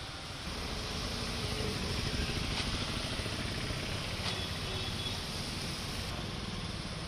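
Road traffic in heavy rain: scooter and car engines running under a steady hiss of rain, with water washing under tyres on a flooded road. It gets a little louder about half a second in.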